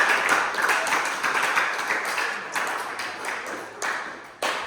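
A small group applauding, the clapping thinning out and dying away, with a few last scattered claps near the end.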